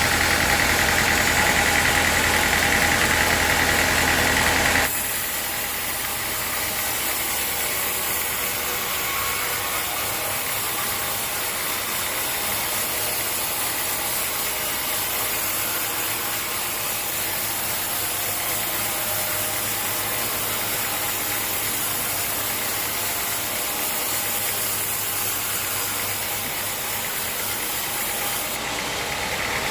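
Sawmill machinery running steadily, with a motor's even hum. About five seconds in it drops suddenly to a quieter, rougher mechanical noise, which runs on evenly until the louder running sound cuts back in at the end.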